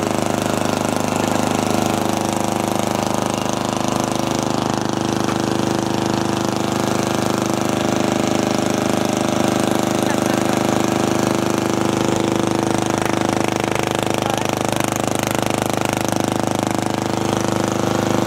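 Briggs & Stratton vertical-shaft riding-mower engine running steadily through a bare iron exhaust pipe with no muffler, really loud.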